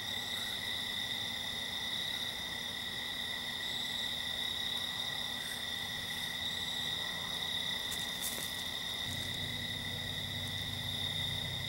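Steady night chorus of crickets, a continuous high trill that does not change. A low rumble joins in about nine seconds in.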